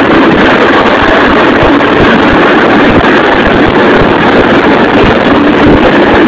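Tractor diesel engine running steadily while driving on the road, heard loud from the cab beside its upright exhaust stack, with wind buffeting the microphone.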